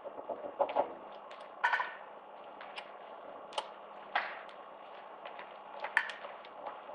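Scattered light taps and knocks, irregular and a few per second at most, over a steady low hum and hiss of a hall's sound system, with a brief voice sound about two seconds in.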